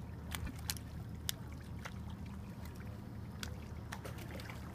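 Boat engine running with a steady low hum, with water lapping and a few small, sharp splashes over it.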